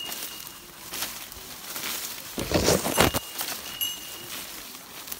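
Leaves and low plants rustling and brushing as a person and a dog push through forest undergrowth, with a louder brushing rush in the middle. A few short, high ringing tones come and go.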